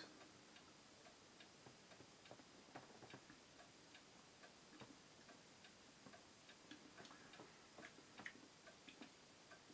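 Near silence: room tone with faint ticks recurring throughout.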